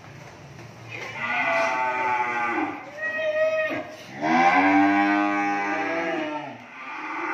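Beef cattle mooing: several long moos one after another, a shorter higher one in between, and the loudest, deepest moo about four seconds in, with another starting near the end.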